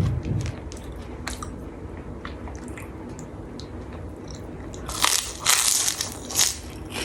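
Close-up eating sounds: quiet chewing with small clicks, then several loud crunches from about five to six and a half seconds in, as a crispy kerupuk kulit (beef-skin cracker) is bitten and chewed.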